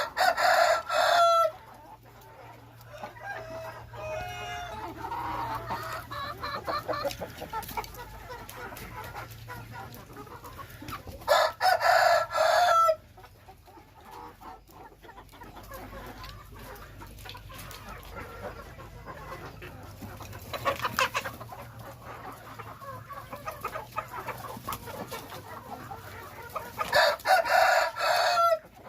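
Hmong chickens clucking, with a rooster crowing three times: at the start, about eleven seconds in, and near the end.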